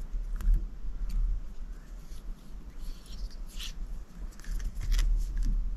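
Scattered small clicks and brief rustles of fly-tying work at a vise, with tools and materials handled, over a low steady hum.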